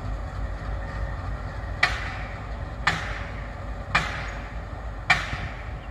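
Low rumble of a slow-moving diesel locomotive with four sharp metallic clanks, evenly spaced about a second apart, beginning about two seconds in.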